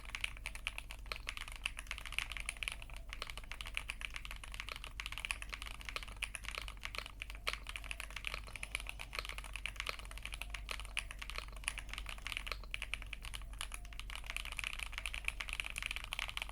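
Fast, continuous typing on a Lychee Heiji Snake AL65, a CNC aluminium 65% custom mechanical keyboard fitted with Beat the Lemon linear switches and Cherry doubleshot keycaps. It is a dense, steady run of key clacks.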